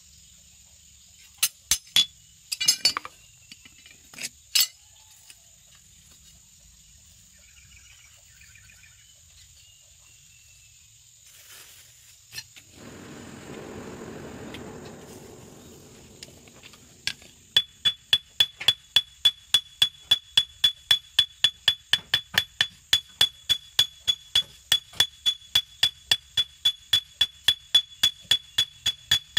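Hand hammer forging a hot golok blade on a steel anvil. There are a few scattered blows early on, then a few seconds of rushing noise with no hammering about halfway through. From about two-thirds of the way in come steady, quick blows, roughly three to four a second, each with a high metallic ring.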